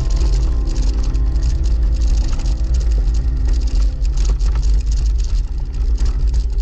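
Wind buffeting and road rumble from a gravel bike descending a rough, stony dirt track, picked up by a handlebar-mounted camera: a loud, steady low rumble with constant rattling and clicking as the tyres run over loose gravel.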